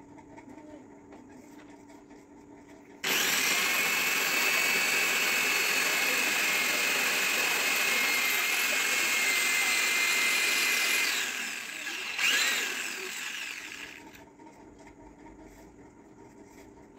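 Corded electric drill boring into a ceramic-tiled wall: it starts about three seconds in and runs steadily with a high motor whine for about eight seconds, eases off, briefly revs up again, then winds down and stops.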